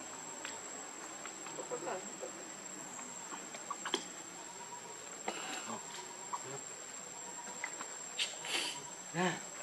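Steady high-pitched insect drone, with scattered small clicks and rustles. Near the end a short pitched call rises and falls.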